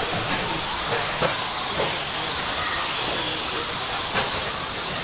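Radio-controlled stock trucks racing on a clay off-road track: a steady hiss of motors and tyres, with a few sharp knocks about a second in, near two seconds and about four seconds in.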